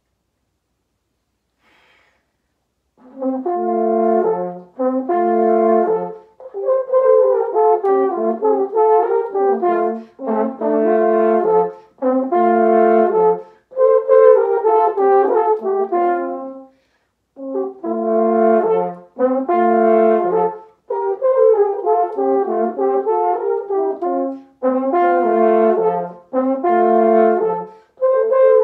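Two French horns playing a fanfare duet, starting about three seconds in, in short phrases separated by brief breaks.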